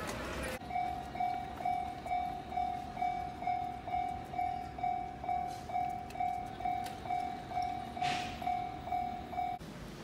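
Japanese railway level-crossing warning bell, an electronic clang ringing about twice a second, signalling that a train is approaching. It starts about half a second in and cuts off suddenly near the end, with a brief hiss just after eight seconds.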